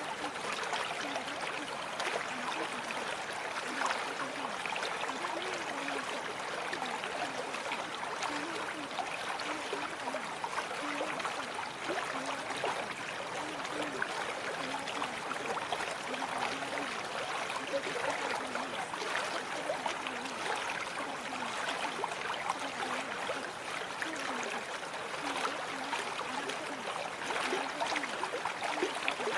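Steady running water, like a babbling stream, with a dense trickling texture that never breaks.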